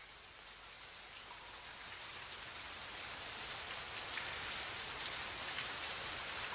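Steady rain, fading in and growing gradually louder.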